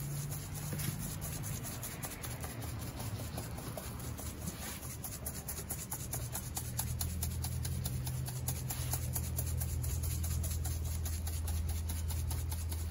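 Salt, pepper and garlic dry rub being sprinkled and rubbed over a raw pork butt by hand: a faint, irregular patter and rubbing. A steady low hum runs underneath and grows stronger in the second half.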